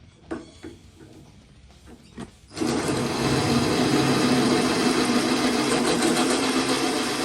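A few light knocks, then an electric drill starts about two and a half seconds in and runs steadily, drilling the head off a seized Torx bolt.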